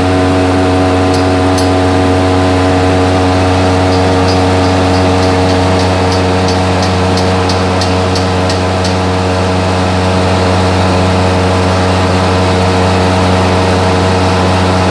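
Electric fan running steadily with a loud hum and a set of steady tones. A run of light, regular ticks, about three a second, comes in about four seconds in and stops near the middle.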